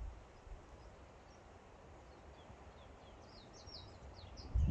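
A bird chirping in a quick run of short, falling notes, over a low outdoor rumble, with a loud low thump near the end.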